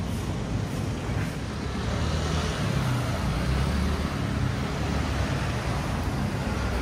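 Road traffic: a steady rumble of passing motor vehicles.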